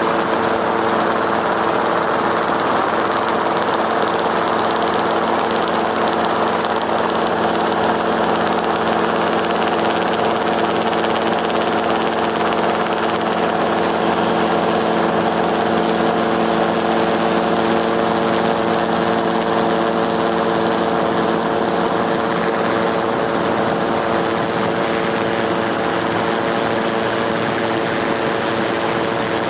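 A steady engine drone, holding one constant pitch with no revving.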